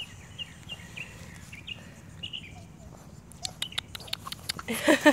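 A small bird chirps repeatedly in short, falling notes; from about three seconds in, a run of sharp clicks and crunches grows louder as a French bulldog puppy gnaws on a bone.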